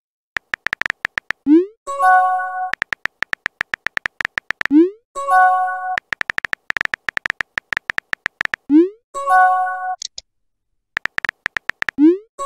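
Chat-app sound effects: runs of rapid keyboard typing clicks, each followed by a short rising pop and then a brief bright chord with a hiss, as messages pop up. The cycle repeats several times.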